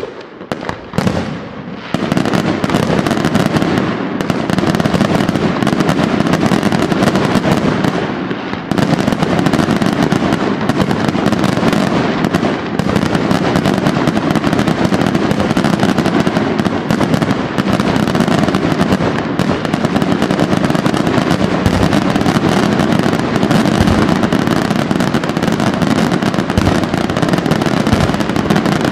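Aerial fireworks display: a few separate shell bursts, then from about two seconds in a dense, unbroken barrage of rapid-fire bangs from many shells going off in quick succession, easing briefly about eight seconds in.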